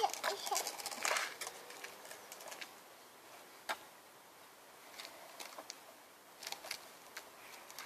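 Small plastic-wheeled tricycle rolling slowly over block paving, giving scattered light clicks and ticks: a cluster near the start, one sharper click midway, and another cluster about two thirds through.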